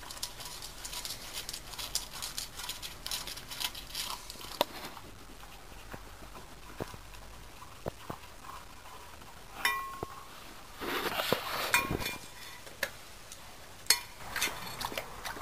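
An old dog eating from a metal bowl: quick wet clicks of licking and chewing, with the bowl knocking and clinking several times, one or two knocks ringing briefly.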